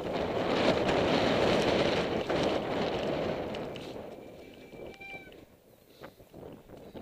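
Wind rushing over a helmet camera's microphone and mountain-bike tyres rolling over a dirt forest trail on a fast descent, dying away about four seconds in as the bike slows. About five seconds in comes a brief high squeal.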